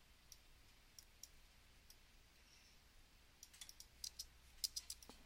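Faint clicks of a computer mouse, a few spaced out at first, then a quick run of clicks in the last two seconds.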